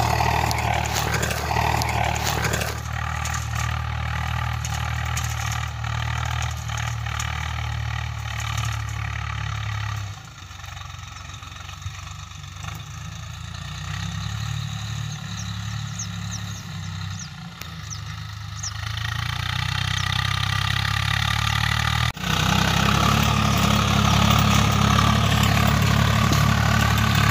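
Swaraj 742 FE tractor's three-cylinder diesel engine running steadily under load while it pulls a tined implement through ploughed soil. It grows fainter about ten seconds in, as the tractor is farther off, and after a sudden cut a little past twenty seconds it is loud and close again.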